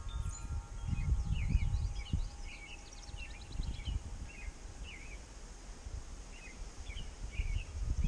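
Wind buffeting the microphone in gusts, with small birds chirping over and over in short notes. A wind chime's last tones fade away within the first second.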